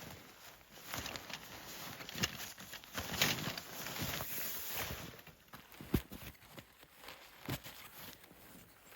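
Footsteps crunching through snow, uneven steps about once a second, growing fainter after about five seconds, with one sharp knock about six seconds in.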